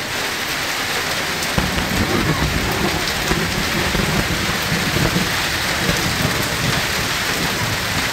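Hailstorm rain falling steadily, a dense hiss with scattered sharp ticks. A deep rumble joins about a second and a half in and carries on.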